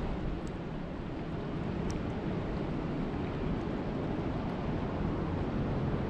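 Steady rain falling on a lake's surface: an even hiss over a low rumble, with a faint high tick now and then.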